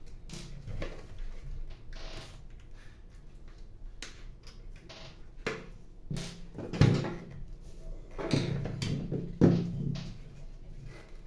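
Plastic clicks, knocks and rattles of a laser toner cartridge being handled and pulled apart, the drum unit coming away from the toner hopper. Two louder clunks come in the second half.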